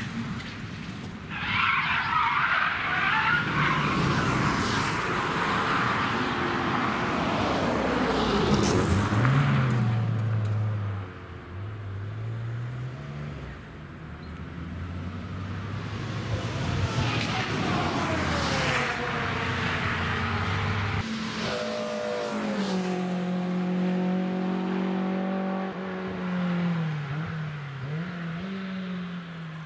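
A spun car slides through the grass and dirt run-off beside the Nürburgring Nordschleife with a loud, noisy rush. After about ten seconds, car engines take over as cars drive past, their note rising and falling in pitch.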